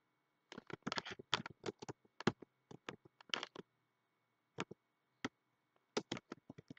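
Typing on a computer keyboard: a quick run of keystrokes for about three seconds, then a few scattered single key presses.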